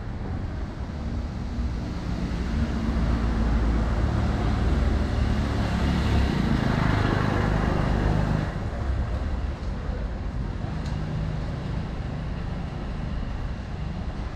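A motor vehicle passing close by: a low rumble that swells over the first few seconds and drops away about eight seconds in, leaving a fainter steady traffic hum.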